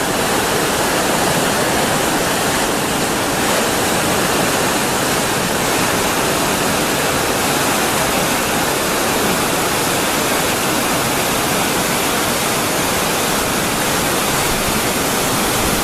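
Waterfall: falling water rushing as a steady, unbroken loud noise, even in level throughout.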